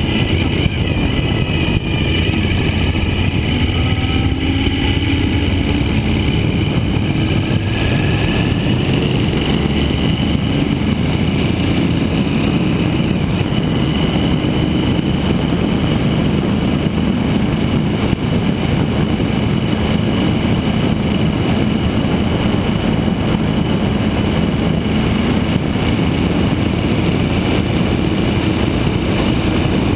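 Suzuki V-Strom 1000 motorcycle under way, its V-twin engine running beneath a steady rush of wind and road noise. The engine's pitch shifts up and down in about the first nine seconds, then the sound holds level.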